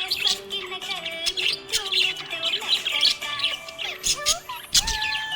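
Small pet parrots chirping and twittering rapidly, many quick overlapping chirps with held whistled notes among them. There is a brief low thump near the end.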